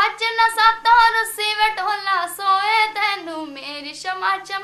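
A young woman singing a Punjabi folk song unaccompanied, holding long notes that waver in pitch, with short breaks between phrases.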